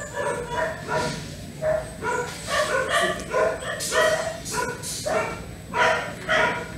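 A dog barking over and over: a dozen or so short barks, about two a second.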